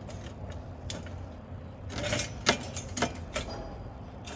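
Metal clamps being set and tightened onto steel pipes held in a welding fixture: a string of irregular sharp clicks and clanks, busiest about two seconds in.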